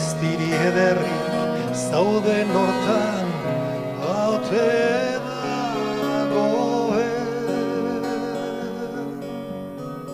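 Live acoustic band music: strummed acoustic guitars with keyboard and accordion, a voice carrying a sliding melody over roughly the first seven seconds, then the instruments alone.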